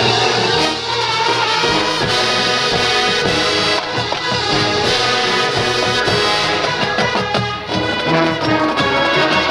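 High school marching band playing: brass section with trombones and trumpets sounding sustained chords over drums and percussion.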